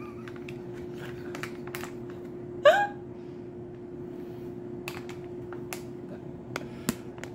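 A steady electrical hum runs under scattered light clicks and taps of things being handled. About two and a half seconds in comes one short vocal sound, like a hiccup.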